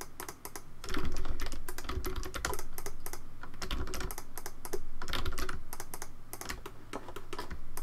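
Computer keyboard keys and mouse buttons clicking in quick, irregular succession, several clicks a second, as edges are picked one at a time. Short stretches of low rumble come in under the clicks.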